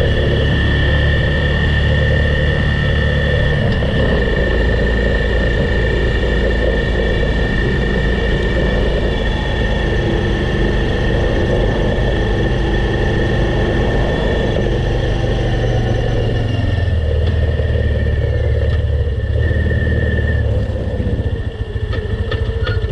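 Snowmobile engine running steadily at speed with a high whine over it. About three quarters of the way through it eases off, and near the end it drops to a pulsing idle as the sled comes to a stop.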